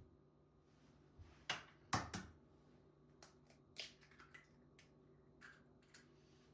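A series of sharp, light clicks and taps at an irregular pace, the loudest few together about one and a half to two seconds in, then lighter ones, typical of small objects being handled.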